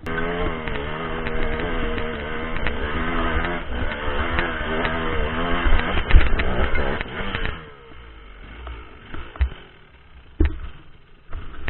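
2004 KTM SX125's single-cylinder two-stroke engine revving hard under load up a steep dirt climb, its pitch wavering with the throttle. About two-thirds of the way through the engine note falls away, and a few knocks follow.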